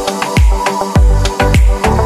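Electronic dance music with heavy, deep bass drum hits that drop in pitch, about two a second, and sharp percussion strokes between them.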